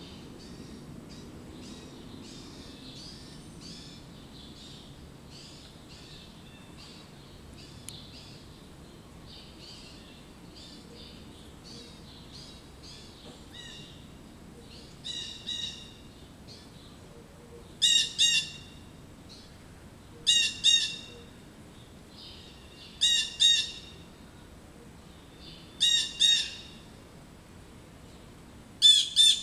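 Blue jays calling in loud pairs of notes, one pair every two to three seconds from about halfway through, over fainter scattered bird chirps: alarm calls at a perched osprey.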